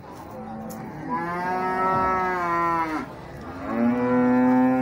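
Cattle mooing: two long, drawn-out moos, the second louder, each dropping in pitch as it ends.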